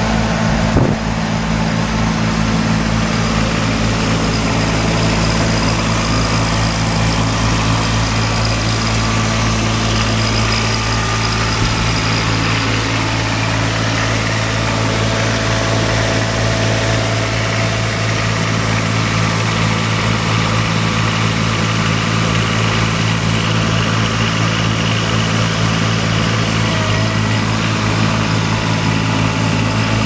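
The engine of a Bomford Turner Flailbot remote-control tracked bank mower running steadily at idle, with one short knock about a second in.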